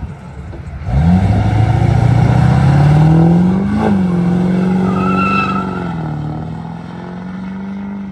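Black Chevrolet Silverado pickup's engine accelerating hard as it drives away. It comes in loud and suddenly about a second in, its pitch climbing steadily, then shifts just before four seconds and holds steady, easing off slightly. A brief high squeal sounds about five seconds in.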